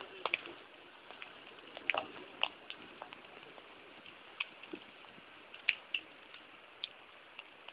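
Faint, steady rush of floodwater with scattered sharp drip-like ticks, irregular, about one or two a second.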